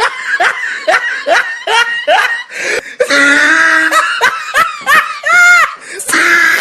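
Laughter, most likely a comic laughing sound effect: a quick run of short, high-pitched 'ha' laughs about three a second, then a held laugh, and one long rising-and-falling laugh near the end.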